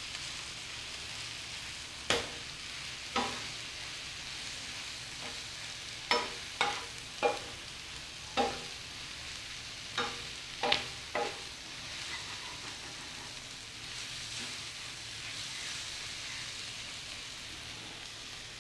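Cubed liver and chopped garlic sizzling in oil on a tawa griddle, stirred with a spatula that knocks and scrapes against the pan about nine times in the first eleven seconds. After that, only the steady sizzle.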